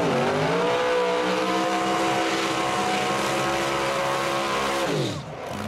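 Supercharged V8 of a first-generation Chevrolet Camaro SS drag car revving up and held at high revs in a burnout, its rear tyre spinning and smoking. Near the end the revs fall away sharply.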